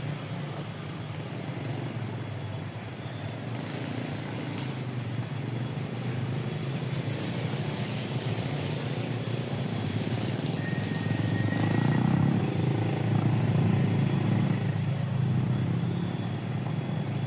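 A small engine running steadily with a rapid pulsing drone, growing louder about ten seconds in and staying up through most of the rest.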